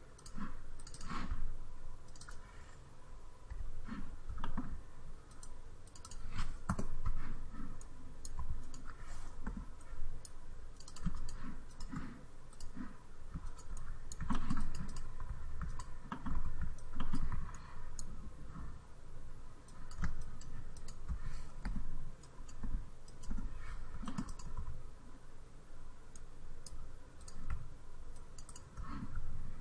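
Computer mouse and keyboard clicks, irregular and many, as a 3D modeling program is worked, with low desk thuds under them.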